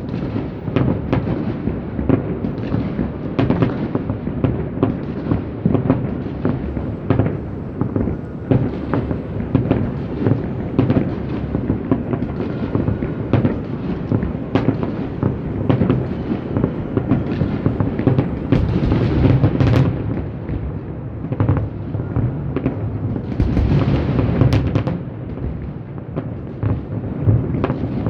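Fireworks bursting in rapid succession from several shows at once. Dozens of booms and cracks overlap into a continuous low rumble, with heavier clusters of bangs in the second half.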